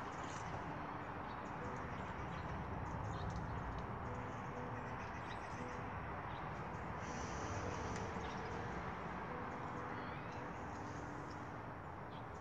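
Steady outdoor background noise with faint, short bird chirps here and there.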